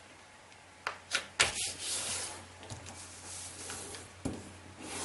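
A large sheet of kami origami paper rustling and sliding on a wooden table as hands fold it in half and press the crease flat: short, irregular swishes and crackles, starting about a second in.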